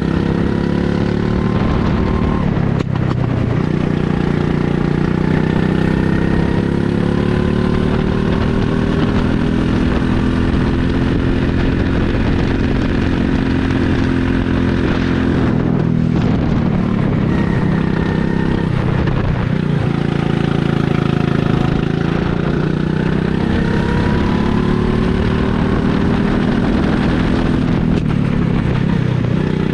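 Rental go-kart engine heard from the driver's seat at full throttle. Its note climbs slowly along the straights and drops sharply where the driver lifts for the corners, about three times.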